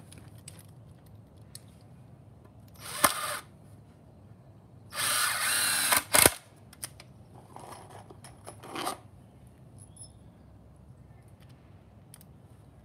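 Cordless drill driving screws through 2x4 boards into wood: a short run about three seconds in, a longer, louder run of about a second in the middle ending in a sharp click, then two brief bursts.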